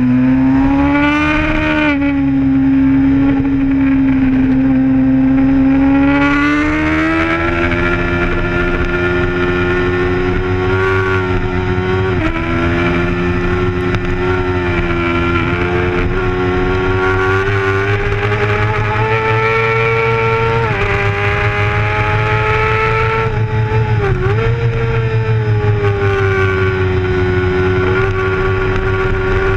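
Racing sport bike's engine running hard, heard from a camera mounted on the bike: one steady high-pitched note that climbs slowly through long stretches. It drops sharply twice, briefly, once near the middle and once later on.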